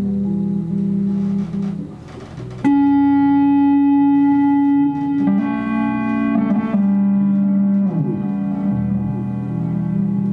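Bass playing layered, sustained low notes. About two and a half seconds in, a loud, bright note comes in suddenly and holds for about two seconds, followed by shifting held notes and a note sliding down near eight seconds.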